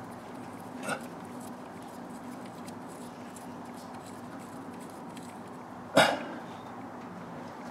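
Metal tool and parts sounds at the oil pressure switch port of an engine block: a light click about a second in and one sharp metallic clank about six seconds in, over a steady low hum.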